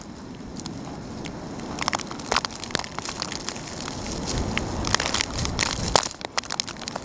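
Snow crunching underfoot in irregular crunches and crackles over a steady low rumble.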